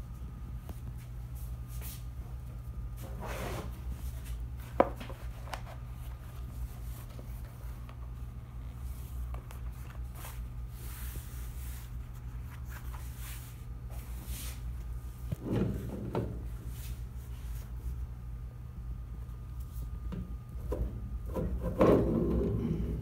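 Hands handling paper and a cork packing sheet on the bed of a letterpress proof press, with scattered rustles and knocks and a single sharp click about five seconds in. Near the end comes the loudest sound, a rolling rub as the press roller is pushed over the sheet. A steady low hum runs underneath.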